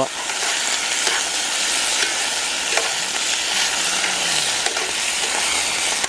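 Squid searing with minced garlic in a hot pan: a steady sizzle, with a few faint clicks from stirring.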